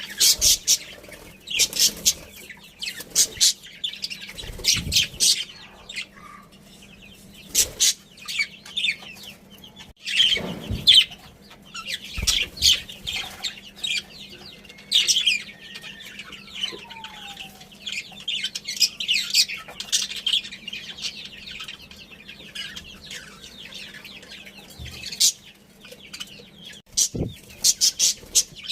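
Many birds chirping and chattering in quick, high, overlapping calls. A louder low thump comes about ten seconds in.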